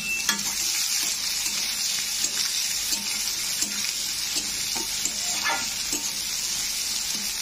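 Chopped onions sizzling in hot oil in a metal kadai, with a steady hiss. A steel spatula stirs them, scraping the pan in short strokes every second or so.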